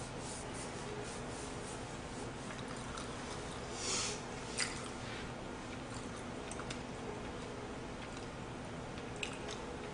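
Quiet eating sounds: faint chewing and a few light clicks of chopsticks against a plate over a steady low hum, with a brief rustle about four seconds in.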